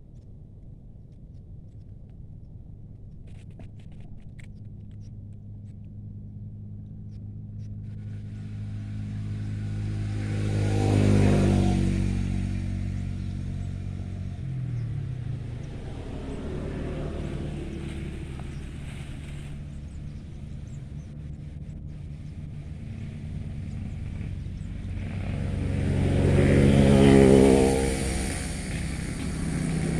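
Motor vehicles passing one after another, the engine noise swelling and fading; the loudest passes come about 11 seconds in and again about 27 seconds in, and another builds near the end.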